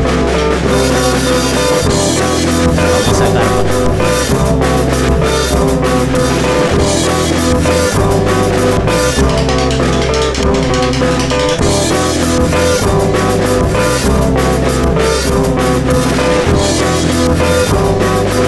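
Background rock music with electric guitar, bass and a steady drum-kit beat.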